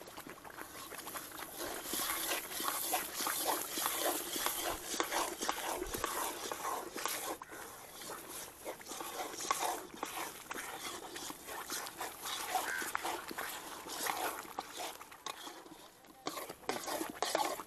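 Thick halwa mixture cooking in oil in an iron kadai, bubbling and crackling as an iron ladle stirs and scrapes it.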